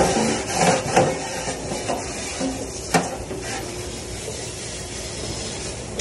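Scrubbing and scraping against a stainless steel dish table in the first second or so, then a single sharp knock about three seconds in. After that comes the steady hiss of a pre-rinse spray nozzle running water onto a plastic container.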